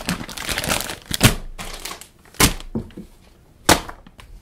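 Crinkling of plastic Soylent powder pouches being handled and shifted around, with three sharp louder impacts a little over a second apart as pouches are set down.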